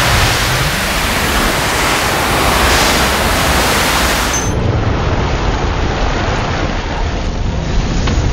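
Loud, steady rushing noise with a low rumble underneath, a film sound effect of a fiery blast. About four and a half seconds in, the high hiss drops away and the rush carries on duller.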